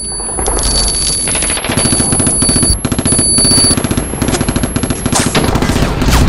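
Automatic gunfire sound effect: rapid, continuous shots in long bursts with short breaks, with a thin high-pitched steady whine over the first half.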